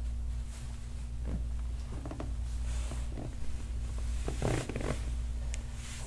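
Steady low hum with a faint steady tone above it, and a few soft breaths and rustles of a forearm pressing along a bare back, the most distinct about four and a half seconds in.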